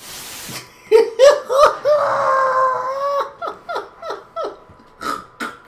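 A man laughing hard. A few rising whoops lead into a long, high held note, followed by a run of short, falling bursts of laughter. A brief hiss sounds at the very start.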